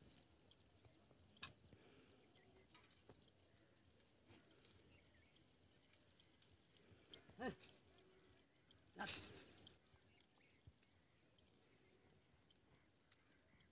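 Near silence with faint, regular high chirping; a single short goat bleat about seven and a half seconds in. A brief burst of noise, the loudest thing, follows about a second later.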